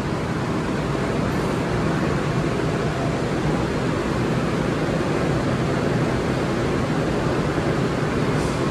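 Steady low rumble and hiss of a GO Transit commuter train standing at the platform with its engine running.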